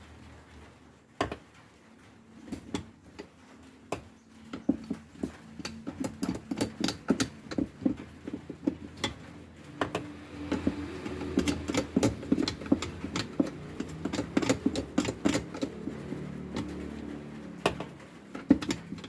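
Irregular clicks and knocks that come thicker from about four seconds in, joined by a low steady hum from about ten seconds in.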